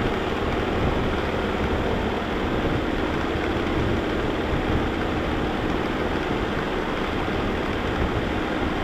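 Vacuum cleaner running steadily: an even motor rush with a constant hum, unchanging throughout.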